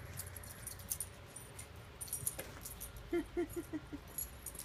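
Puppy's collar tags jingling in quick irregular chinks as the dog leaps about, with a short rapid run of about five low voiced pulses a little after three seconds in.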